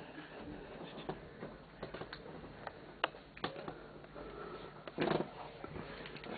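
Faint rustling and scattered soft clicks of close handling noise and bedding being disturbed, with a short louder burst about five seconds in.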